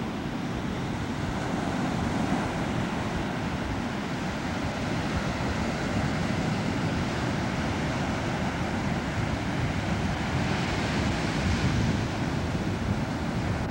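Ocean surf breaking on the beach, a steady rush of water that swells slightly about eleven seconds in, with wind rumbling on the microphone.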